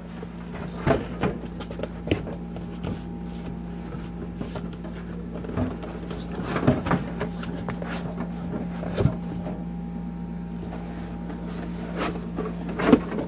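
Large cardboard shipping box being handled: irregular knocks, scrapes and flap movements of corrugated cardboard, over a steady low hum.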